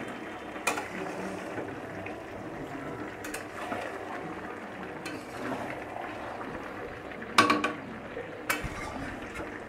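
Mutton curry bubbling and sizzling in a metal kadai while a spatula stirs it, with a few sharp knocks of the spatula against the pan, the loudest about seven seconds in.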